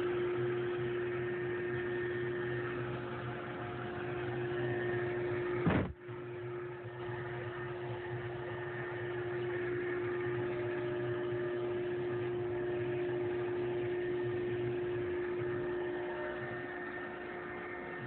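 Large CNC router's spindle running at a steady high whine over a low machine hum while it mills a plastic block, with a short break about six seconds in.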